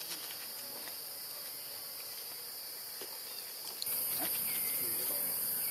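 Steady, high-pitched drone of a forest insect chorus, jumping louder about four seconds in.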